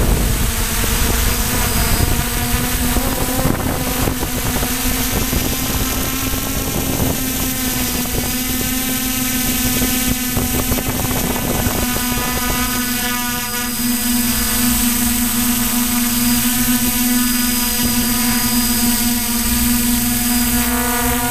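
Multirotor drone's electric motors and propellers whining steadily, recorded by the onboard camera, with a low rumble beneath.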